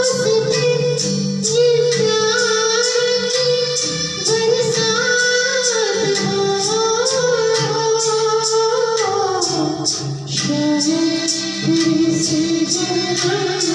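Song music: a held, gliding melody line over a steady, light percussion beat.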